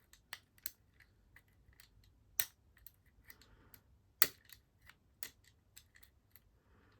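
Lock picks and a tension tool clicking and scraping in the keyway of a cheap Yuqi lock while trying to set the pins. There are irregular small metallic clicks and taps throughout, with two louder clicks about two and a half and four seconds in.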